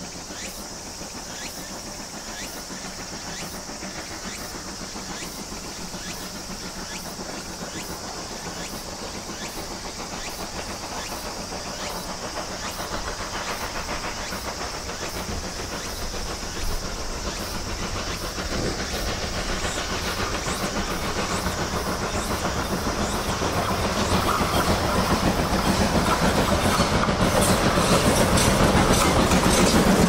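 A steam locomotive working hard, its exhaust chuffing in steady beats and growing steadily louder as it approaches, then the clatter of its wheels and running gear as it passes close by near the end. Insects drone steadily in the background.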